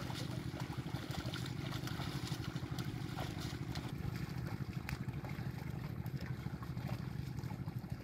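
A small engine running steadily off in the background, a low, fast, even chugging, with faint splashes of the bullocks and plough moving through muddy water.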